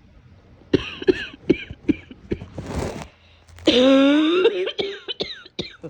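A person's coughing fit: a run of short, sharp coughs, a long harsh breath drawn in about halfway through, then a drawn-out voiced sound and more short coughs.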